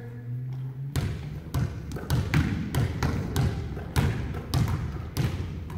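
Basketballs dribbled on a hardwood gym floor, starting about a second in: sharp bounces about three a second, irregular as more than one ball is going.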